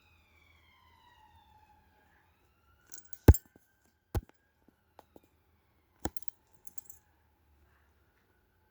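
A few sharp clicks or knocks, the loudest about three seconds in, with a faint whistle-like tone sliding down in pitch in the first two seconds.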